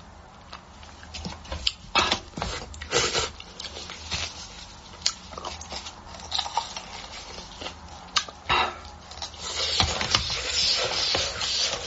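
Close-miked eating of beef bone marrow: irregular wet clicks and smacks of chewing and biting, with a denser hissing stretch near the end.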